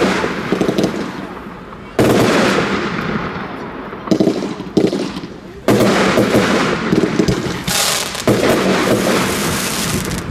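Rubro Event Immortal Gold firework bursting overhead: about six sharp bangs one to two seconds apart, each trailing off in a fading wash.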